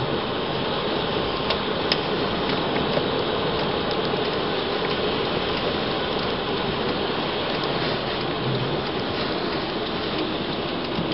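Rain falling on a car's roof and windscreen, heard from inside the car: a steady hiss with a few sharper taps of single drops.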